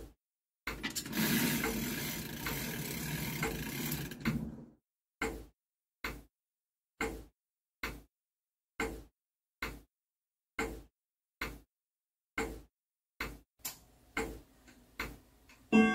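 Ridgeway grandfather clock ticking, one sharp tick a little under every second. From about a second in to about four and a half seconds in, the ticks are masked by a stretch of dense rasping noise with a few clicks.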